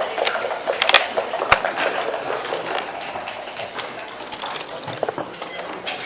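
Irregular clicks and clatter of backgammon play, with checkers set down on the board and dice rattling, over a steady background hum of the room.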